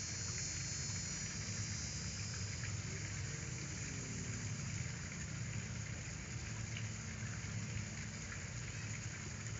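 Steady background hiss with a continuous low hum and a few faint, scattered ticks.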